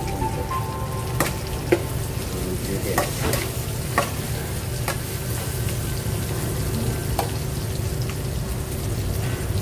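Onion, ginger and chillies sizzling in an aluminium wok on an induction hob while a metal spatula stirs them, with scattered sharp clinks of the utensil against the pan.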